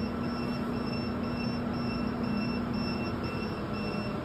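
Cooling fans and hum of running modular UPS units, with a high alarm beeping steadily about twice a second; the alarm signals that the battery circuit breaker is still open.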